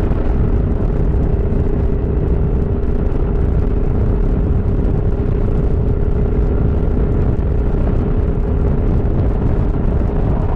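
Motorcycle running at steady highway speed, heard from a helmet-mounted microphone: heavy wind rush under a steady engine drone.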